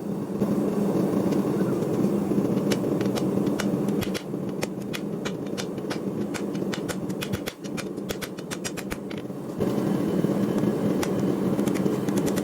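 Forging a steel knife blade: a steady machine-like drone runs throughout, with scattered sharp strikes of a hammer on steel. Both drop back somewhat in the middle and pick up again near the end.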